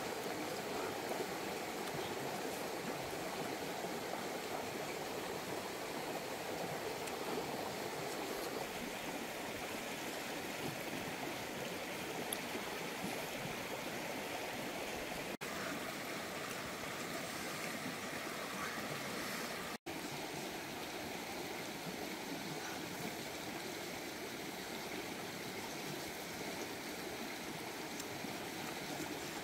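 Steady rush of flowing water, even and unbroken, cutting out for an instant twice.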